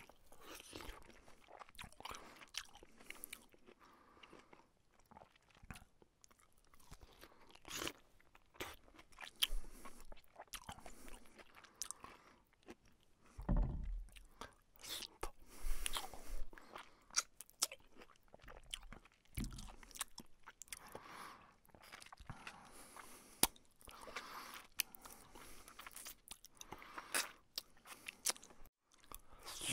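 Close-miked chewing and crunching of fried fish and rice eaten by hand, with many short sharp mouth clicks. Two dull low thumps come about halfway through.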